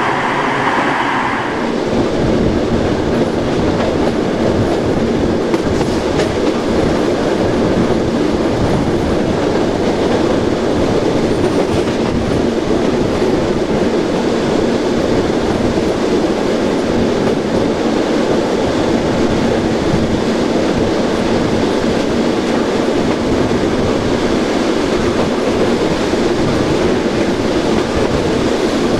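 Modernised SNCB AM80 electric multiple unit running at speed, with a steady rumble of traction motors and wheels on the rails. A higher whine stops about a second and a half in.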